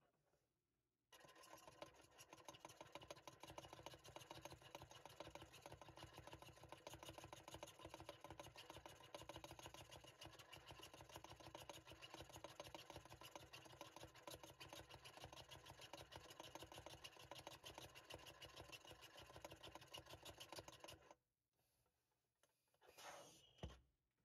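3D-printed plastic hand-operated balloon inflator being worked steadily for about twenty seconds, a fast, even plastic rattle as it pumps air into the balloon. After a short pause near the end, a brief rush of air as the filled balloon is released and the jet car sets off.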